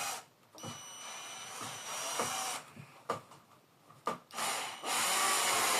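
Power drill driving a saddle screw into a saddle. Its motor whines in several runs with short stops between: a longer run near the start, brief spurts in the middle, and another run near the end.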